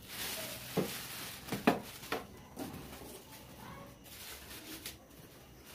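Clear plastic wrapping crinkling and rustling as it is pulled off a water purifier, with two sharp knocks, the louder one nearly two seconds in.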